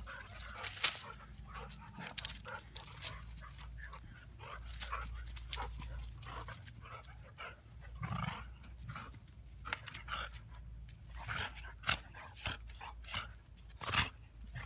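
A golden retriever and a husky play-fighting: irregular scuffling, breathing and mouth noises from the two dogs, with louder moments about eight and fourteen seconds in.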